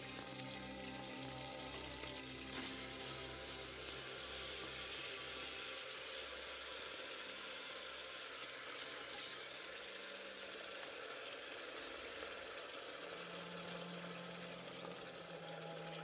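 Steady sizzling hiss of beans cooking in an open cast-iron pot on a wood-fired stove.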